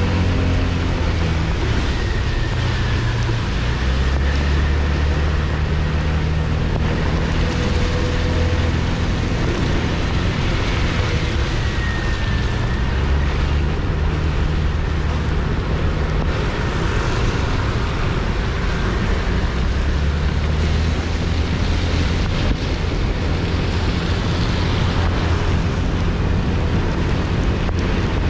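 Wind rushing over an action camera's microphone, with its wind reduction switched off, while riding. Beneath it runs steady road and vehicle noise with a low hum that shifts in pitch.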